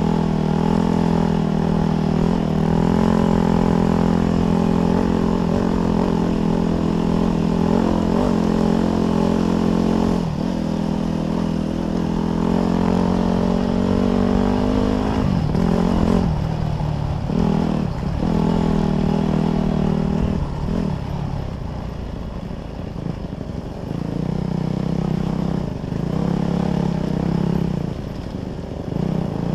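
Dirt bike engine running under throttle while riding a dirt trail. About halfway through, the throttle is rolled off and on several times and the engine note drops; it then runs lower for a few seconds before picking back up near the end.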